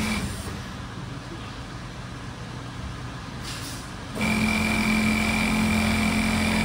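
Automatic curtain hemming machine with a sewing head, running with a steady mechanical whine. It cuts out right at the start, leaving a low hum, and starts up again loudly about four seconds in, just after a short hiss.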